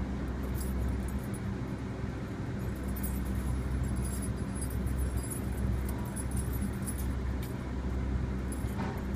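Steady low hum of an idling diesel engine, with a few faint metallic clinks from bungee-cord hooks being fitted around the bike.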